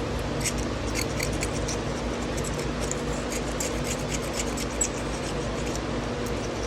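Fine wet-or-dry sandpaper scraping against the steel inside an old pocket knife, in short, irregular scratchy strokes, over a steady low hum.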